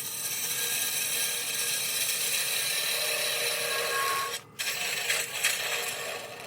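Spindle gouge cutting a spinning goncalo alves hardwood blank on a wood lathe while roughing out the shape, a steady scraping. It breaks off briefly about four and a half seconds in, then resumes.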